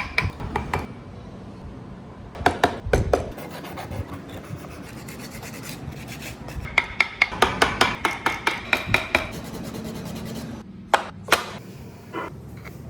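A hand tool working wood in quick, even strokes of about four or five a second. There are two runs of strokes, a short one early and a longer one in the middle, then a few single knocks near the end.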